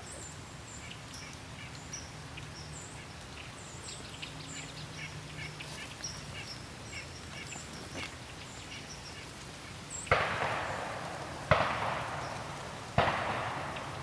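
Three distant shotgun blasts about a second and a half apart, each echoing and fading away. Small birds chirp in the quiet before them.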